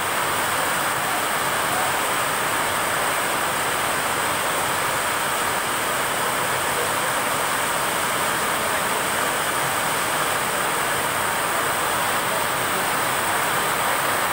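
Heavy monsoon rain falling steadily on a station platform and railway tracks: an even, unbroken hiss.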